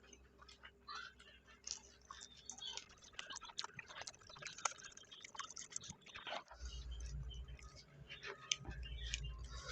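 Close-up chewing and wet mouth sounds of people eating stir-fried clams with green chilies, with frequent small clicks and crackles. A low hum comes in about two-thirds of the way through.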